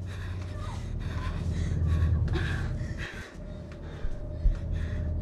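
A woman's gasping breaths over a steady low hum, with one dull thump about four and a half seconds in.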